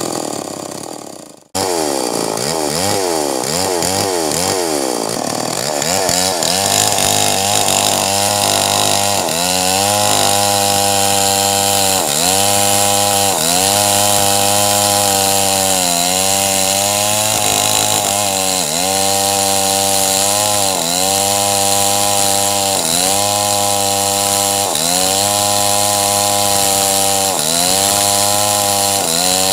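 Stihl MS 381 two-stroke chainsaw ripping lengthwise down through a large red meranti log. After a brief drop-out about a second and a half in, the engine pitch wavers for a few seconds. It then settles into steady cutting at full throttle, the pitch dipping about every second as the chain bites into the wood.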